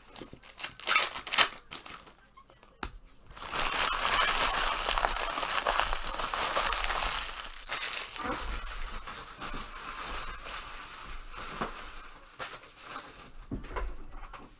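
Wrappers of Panini Prizm Basketball retail trading-card packs being torn open and crinkled. A few sharp clicks come first, then from about three and a half seconds in a continuous crinkling that is loudest for a few seconds and then goes on more softly.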